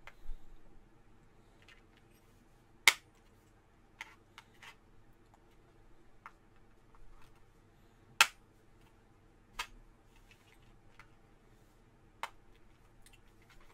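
Small clear plastic drill-bit case being handled and pried at to get it open. It gives a handful of sharp plastic clicks, loudest about three and eight seconds in, over faint fumbling.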